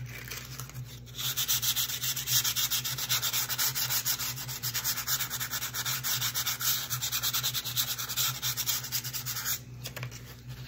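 Fine sandpaper rubbed by hand in quick back-and-forth strokes over the painted, stenciled wood of a tray, roughening the paint so it does not look stark and perfect. The strokes start about a second in and stop near the end.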